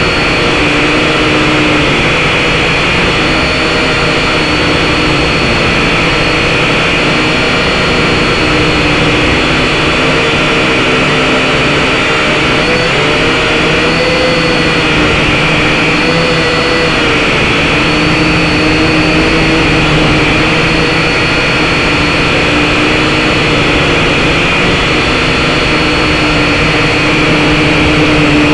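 SYMA X5HC-1 quadcopter's motors and propellers, heard close up through its onboard camera microphone: a loud, steady whine of several pitches that waver up and down slightly as the motor speeds change.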